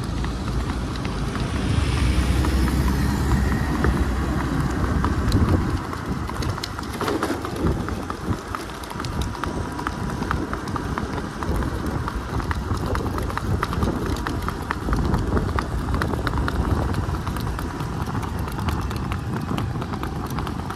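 A horse's hooves clattering fast and evenly on asphalt as a mare moves in the big revaal, the smooth ambling gait of Indian horses. A low rumble of wind and an engine covers the first several seconds.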